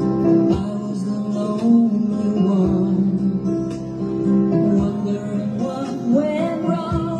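Music: a song's intro led by a strummed acoustic guitar, with a melodic line coming in near the end.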